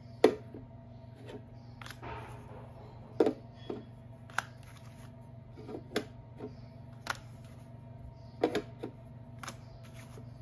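Eggs clicking and knocking against each other and their container as they are handled and sorted, about ten sharp irregular clicks, the loudest about a quarter second in. A steady low hum runs beneath.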